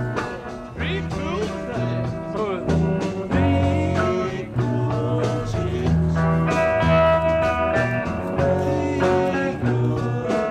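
Background music: a blues-style guitar track with a steady bass line and some singing.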